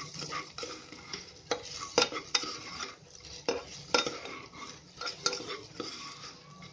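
A spatula stirring vegetables and spice powders frying in ghee in an open pressure cooker, scraping and knocking against the metal pot in irregular strokes over a light sizzle.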